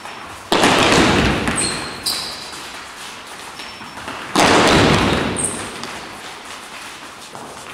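A group of fencers' sneakers striking the gym floor together during footwork drills: two loud group stamps about four seconds apart, each ringing on in the hall, with a few short high sneaker squeaks between them.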